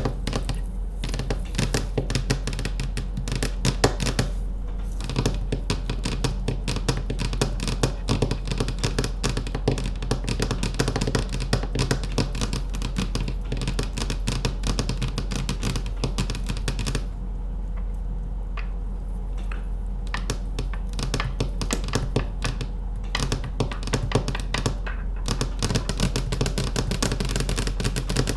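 Rapid, continuous fingernail tapping on hard objects, thinning out for a few seconds past the middle, over a steady low hum.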